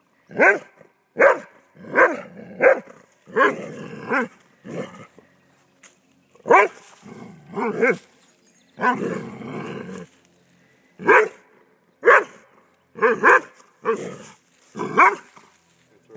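Doberman barking repeatedly at a small snake: short, sharp barks in irregular runs of two to four, with pauses between.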